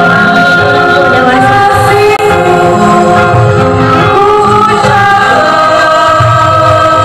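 A choir of schoolchildren and parents singing a slow song in Indonesian.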